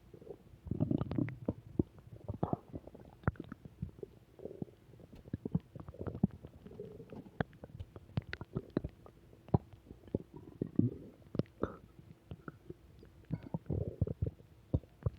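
Human stomach growling and gurgling: a long run of irregular short pops and bubbling gurgles with low rumbles, busiest about a second in and again near the end.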